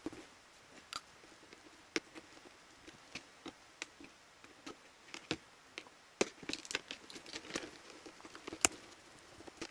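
Irregular light clicks and taps of small hard parts being handled, as of tools and plastic and metal parts of a Makita TD172D impact driver during teardown, with a busier run of clicks about two-thirds of the way through.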